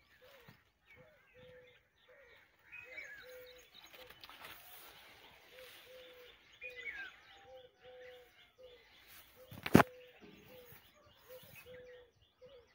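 Birds calling in an orchard: a steady run of short, low, even notes about twice a second, with scattered higher chirps from other birds. A single sharp knock, likely the phone being handled, about three-quarters of the way through.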